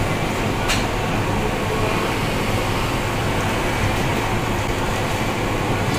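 Kachoris deep-frying in a large iron kadhai of hot oil: a steady sizzle over a low rumble. There is one sharp click a little under a second in.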